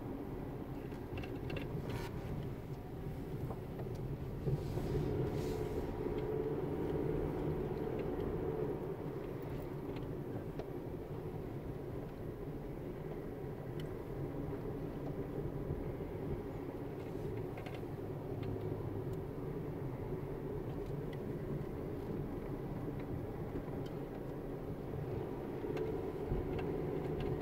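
Car cabin noise while driving slowly up a narrow mountain road: a steady low engine and tyre rumble, with a couple of light knocks in the first few seconds.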